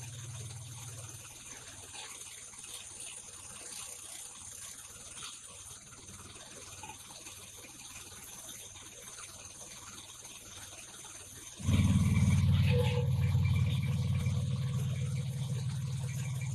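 Wood crusher machine and its engine running, cutting in suddenly about two-thirds of the way through as a loud, steady low-pitched machine noise that then eases off slightly. Before that there is only faint background noise, with a low hum that stops about a second in.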